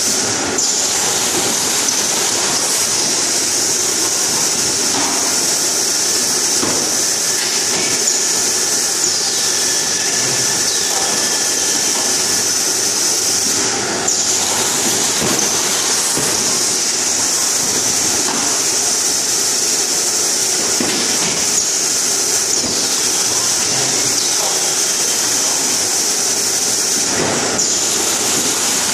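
Automatic carton erecting, case packing and sealing line running: steady machine noise with a constant high hiss, and scattered clicks and knocks as the mechanisms cycle and cartons move along the conveyors.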